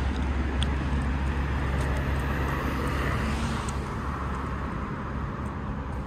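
Road traffic on the street: a steady low rumble of passing cars, with tyre noise swelling about two to four seconds in.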